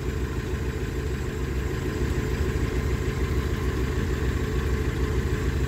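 Iveco Daily van's engine idling steadily, an even low running throb.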